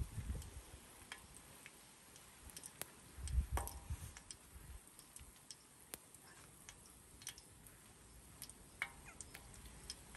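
Eggs and butter frying on a flat-top griddle: faint, irregular popping and crackling of the hot fat. A short low rumble comes about three and a half seconds in.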